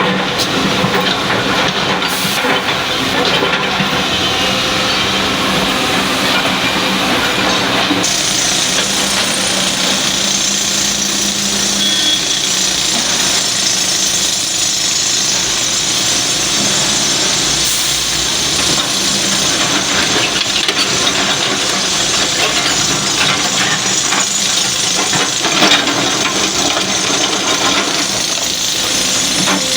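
LiuGong excavator running as it loads stone: steady engine and hydraulic noise with a strong hiss, and scattered clinks of stone.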